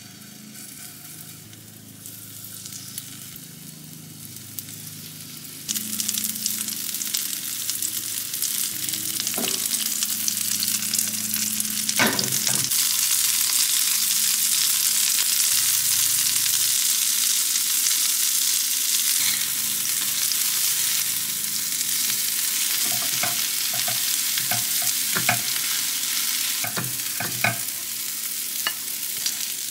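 Batter fritters frying in hot oil in a nonstick pan: a steady sizzle that grows much louder about six seconds in as more batter goes into the pan. A few sharp knocks of kitchen utensils against the pan come in the second half.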